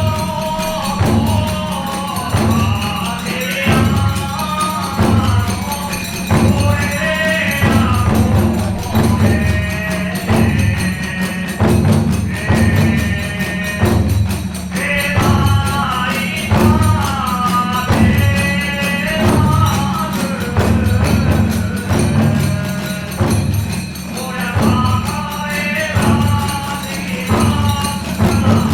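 Kagura hayashi ensemble playing: large and small taiko drums beating a steady pulse, hand cymbals clashing, and a bamboo fue flute melody above.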